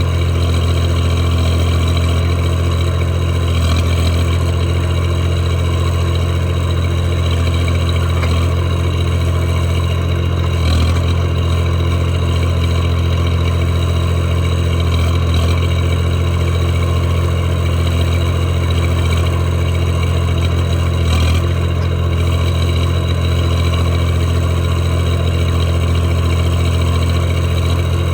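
Mini backhoe loader's engine running steadily at an even speed, with no revving.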